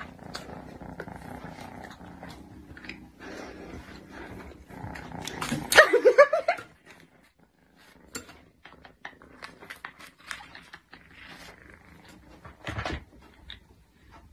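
Domestic cat making a steady low rumble close to the microphone while going after food on a plate. About six seconds in there is one loud, short, wavering cry, followed by quiet stretches with scattered short sounds.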